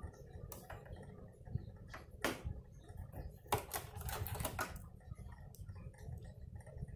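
Scattered light clicks and knocks of metal and plastic as a presser foot is unclipped and taken off a sewing machine, with a quick cluster of clicks a little past the middle.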